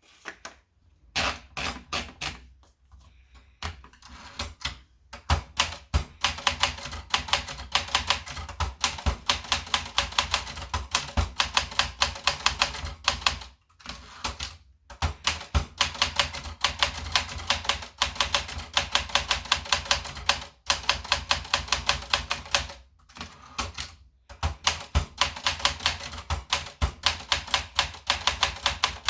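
Olympia Splendid 33 manual portable typewriter being typed on: a quick, steady run of key strikes clacking against the platen, several a second, broken by a few short pauses.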